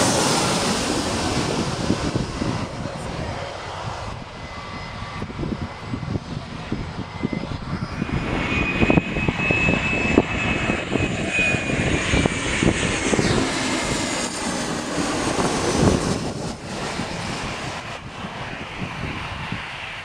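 Airplane flying overhead: a steady engine roar with a high whine, loudest in the middle and fading away over the last few seconds.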